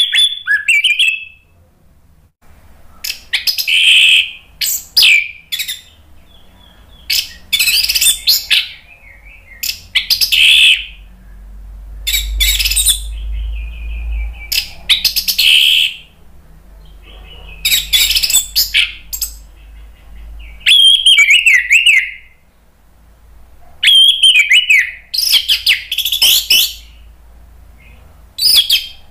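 Orange-headed thrush singing loud, varied phrases a second or two long with short pauses between, made of quick warbling and whistled notes that rise and fall.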